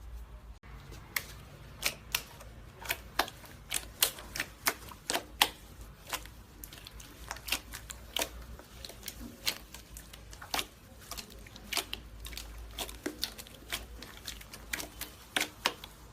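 Slime being pressed and squeezed by hand, giving a run of irregular sharp crackles and pops, a few per second.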